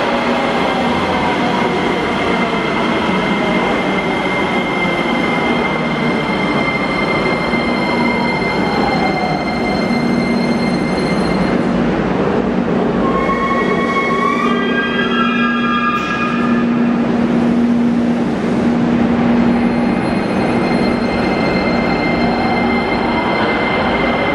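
Metrovagonmash Rusich metro train running through an open-air station: the rumble of wheels on the rails under a steady hum, with the electric traction drive's whine gliding up and down in pitch. In the middle comes a short run of tones that rise in steps.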